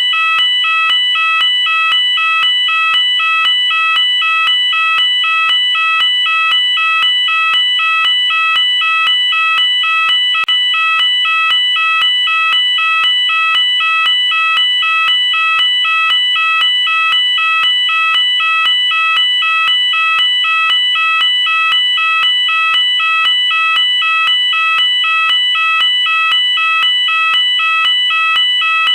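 UK electronic fire alarm sounder going off continuously, switching back and forth between two tones about twice a second in a steady warble.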